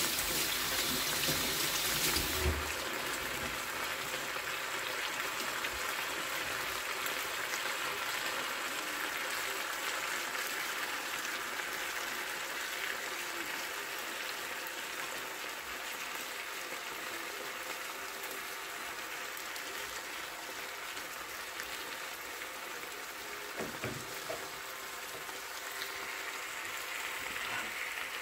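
Sundae and vegetables sizzling in a frying pan: a steady frying hiss, louder for the first couple of seconds, with a light knock a little before the end.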